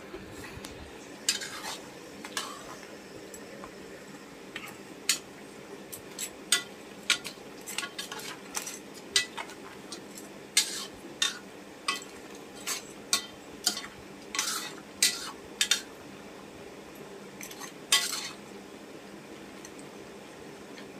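Metal ladle stirring crabs, shrimp and vegetables simmering in coconut milk in a large metal pot: irregular clinks and scrapes of metal on the pot over a steady low hiss, stopping a few seconds before the end.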